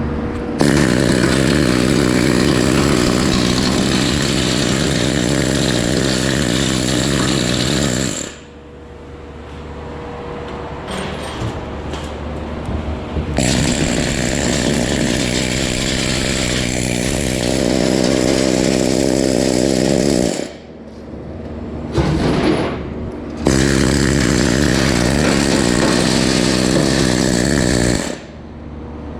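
Needle scaler chattering in long runs against welds as it knocks off slag, stopping and starting three times with short pauses between.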